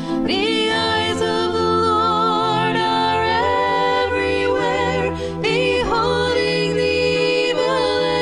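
A religious song: a voice sings long held notes with vibrato over a steady low accompaniment.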